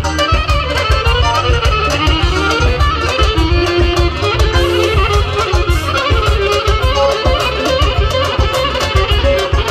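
Loud instrumental traditional folk dance music: a winding lead melody over a fast, steady beat.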